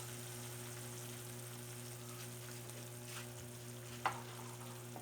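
Vinegar and brown sugar sauce simmering in a pan as its cornstarch thickens it: a faint steady sizzle and bubbling over a low hum, with a couple of light clicks about three and four seconds in.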